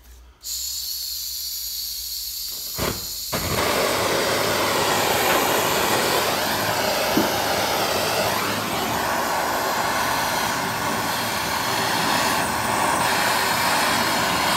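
Hand-held gas blowtorch on a screw-on canister: gas hisses from the nozzle, a click comes about three seconds in, then the flame lights and burns with a louder steady hiss. It is heating a Loctite-locked swingarm pivot pin to break the thread locker loose.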